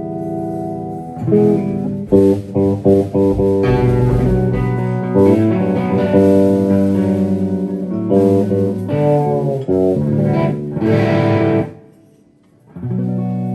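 Improvised band music with sustained notes and plucked-string attacks. It drops out for a moment about twelve seconds in, then starts again.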